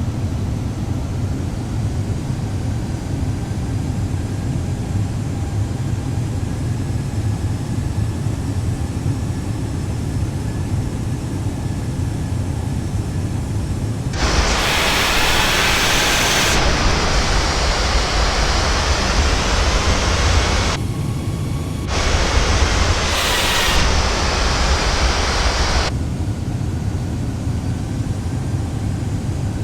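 Steady low rumble of an airliner cabin on final approach. About halfway through, a loud rushing hiss cuts in for roughly twelve seconds, broken by a one-second gap, then stops abruptly.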